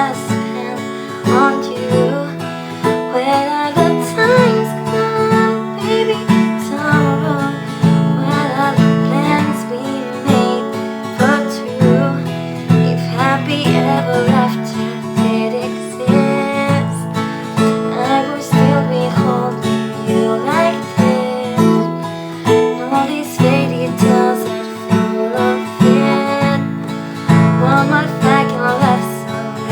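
Acoustic guitar strummed in a steady rhythm, with a melody line gliding over the chords.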